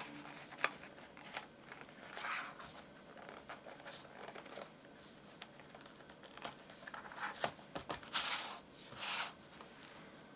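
Faint handling noises: scattered light clicks and rustling, with louder brushing rustles about two seconds in and twice near the end.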